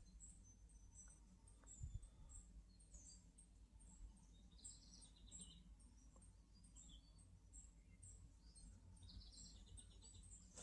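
Near silence: faint birds chirping in the background, with a soft knock about two seconds in.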